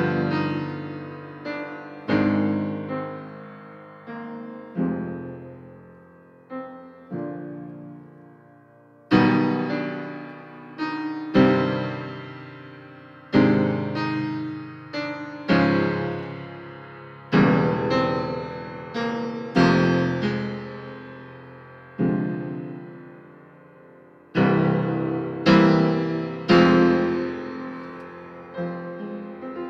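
Solo piano playing slow chords, struck about every two seconds and each left to ring and fade. The playing is softer in the first third and fuller from about nine seconds in.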